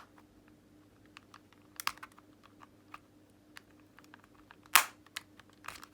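Light plastic clicks and scrapes from a tool prying at an Xbox One controller's plastic shell, with one louder click about five seconds in.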